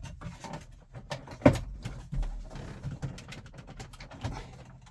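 Plastic dash trim clips on a 2001 Ford F350 Super Duty snapping loose as the bezel is pulled out: one sharp snap about a second and a half in, among smaller clicks and knocks of plastic.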